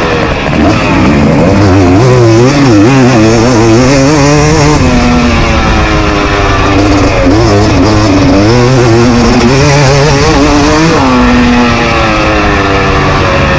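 KTM SX 250 two-stroke single-cylinder motocross engine ridden hard, heard from on the bike. Its pitch rises and falls over and over as the throttle opens and closes, with short throttle-off drops about five and eleven seconds in.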